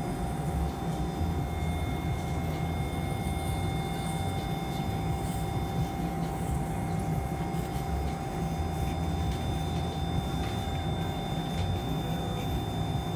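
Steady hum and low rumble of operating-room equipment, with a constant thin electronic whine held at several fixed pitches.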